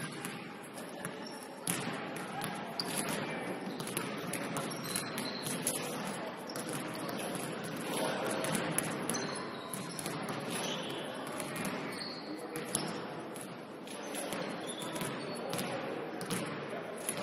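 Basketball game in play: a ball bouncing on the court in repeated sharp knocks, with short high sneaker squeaks and players' voices.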